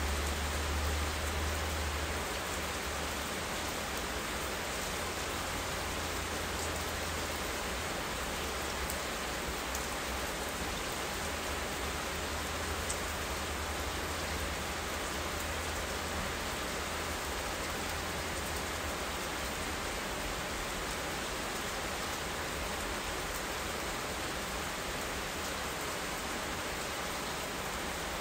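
Steady rain falling, an even hiss with no break. A low rumble sits underneath, strongest in the first several seconds and then easing off.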